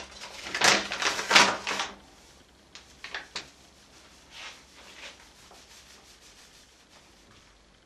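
Rustling and scraping as flour is poured and scooped into the mixing bowl. A loud stretch of rough scraping lasts about two seconds, followed by a few faint scrapes.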